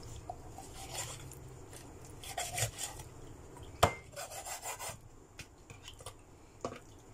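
A meat cleaver cutting raw chicken on a wooden chopping board: rasping, scraping strokes of the blade through skin and flesh, with one sharp knock of the blade on the board about halfway through.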